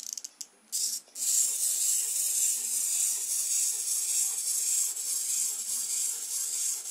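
A few quick clicks as the clockwork toy is wound, then about a second in its clockwork motor starts: a steady, high-pitched whirring rasp as the plastic kit Diplodocus walks on a wooden table.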